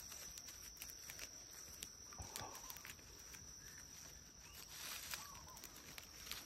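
Faint crackling and rustling of dry pine needles and mulch as hands press soil around a newly planted seedling, over a steady high-pitched insect drone.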